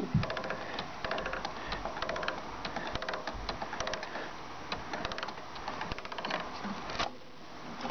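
Rapid, irregular clicking and rustling of hands working at the diesel fuel filter and its hoses, stopping about a second before the end.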